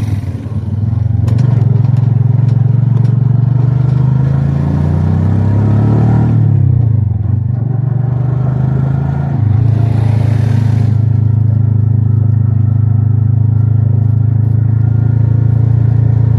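Engine of the vehicle carrying the camera running as it drives along the road. Its pitch falls around six seconds in and steps back up about nine and a half seconds in, then holds steady, with a brief hiss near ten seconds.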